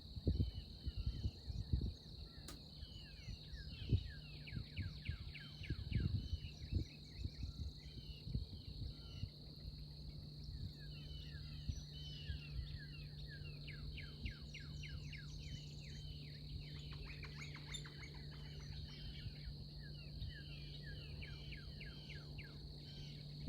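Outdoor rural ambience: a steady, high insect drone with many small birds chirping over it. Low bumps on the microphone come in the first several seconds, and a steady low hum runs underneath.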